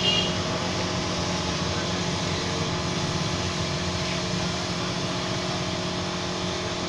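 Paint spray gun hissing steadily over the constant hum of the air compressor that feeds it.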